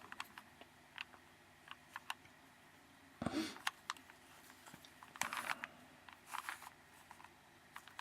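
Plastic Rubik's Cube layers being turned by hand: scattered light clicks with a few short rasping twists, about three of them, in the middle of the solve.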